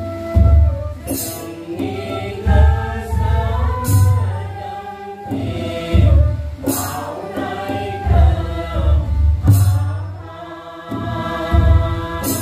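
Group devotional chanting by many voices, with a steady low drum beat and a cymbal clash about every three seconds.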